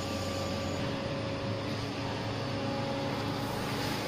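Steady mechanical hum of machinery running, with a low drone and a faint steady higher tone.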